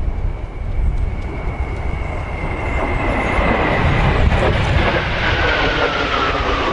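Kawasaki T-4 jet passing: a high engine whine that falls steadily in pitch as it goes by, over a rising jet roar. Wind rumbles on the microphone throughout.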